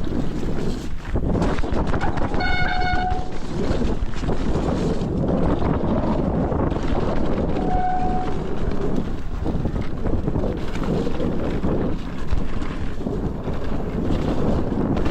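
Mountain bike descending a trail: wind buffeting the microphone and the tyres and bike rattling over rough ground. Two short disc-brake squeals, one a little over two seconds in and a shorter one about halfway through, from brakes not yet bedded in.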